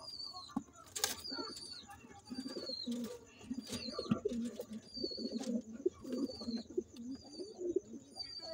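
Domestic pigeons cooing in a loft, several birds' low coos overlapping one after another. A short high chirp repeats about once a second, and there are a few sharp clicks.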